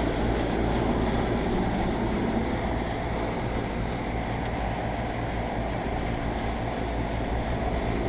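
2004 Payne teardrop 3.5-ton central air conditioner condenser running steadily: its Copeland reciprocating compressor hums under the even rush of the condenser fan.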